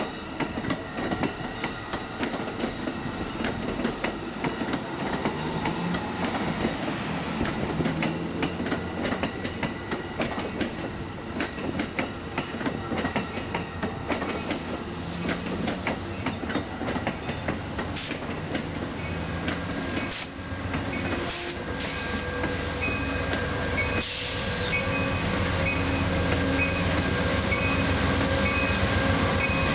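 Amtrak passenger coaches rolling past, their wheels clicking over the rail joints. About 24 s in, the diesel of the trailing Amtrak P42DC locomotive, which is pushing the train, comes close, and its steady engine hum grows louder through the end.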